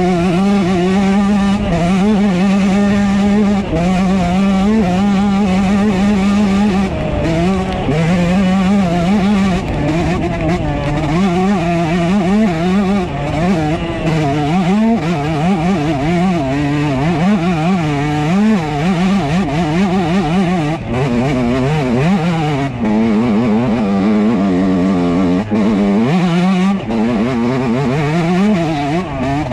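2003 Yamaha YZ125's single-cylinder two-stroke engine under way on a dirt track, revving up and down over and over as the rider works the throttle and gears.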